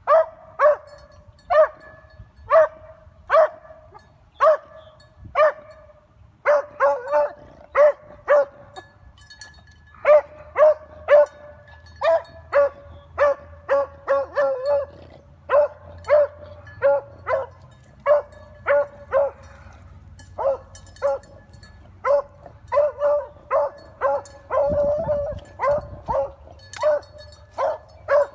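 Beagle barking on a rabbit's scent line: short, even, pitched barks about one to two a second, in runs broken by brief pauses, with one longer drawn-out cry near the end. This is a hound giving tongue while it trails a rabbit.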